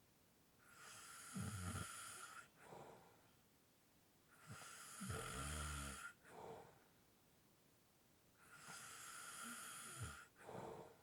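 A sleeping person's light snoring and heavy breathing, quiet: three slow breaths about four seconds apart, each a long breathy draw with a low snore toward its end, followed by a short breath.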